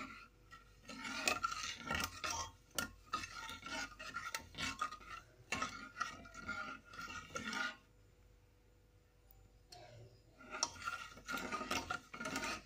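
Steel ladle stirring milk, broken wheat and sugar in an aluminium pressure cooker, scraping and clinking against the metal pot in quick strokes. The stirring pauses for about two seconds near the end, then starts again.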